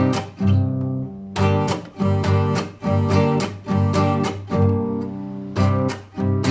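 Acoustic guitar strummed in chords with a regular rhythm, with a chord left to ring about a second in and again near the end.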